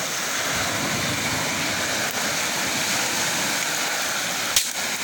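Shallow stream running over rocks, a steady rush of water. A single sharp click about four and a half seconds in.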